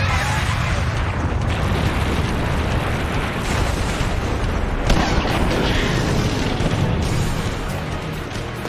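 Anime explosion sound effects from a magic energy blast striking a barrier: a continuous loud, rumbling blast with a sharp fresh hit about five seconds in, with music underneath.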